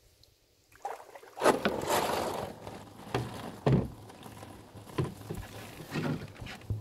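Canoe landing on a gravel shore: the hull scrapes and grinds over the gravel starting about a second in, followed by several separate knocks and thumps against the hull.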